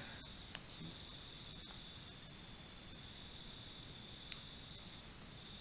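Faint steady background hiss with a thin, steady high-pitched band running through it, and one short sharp click a little after four seconds in.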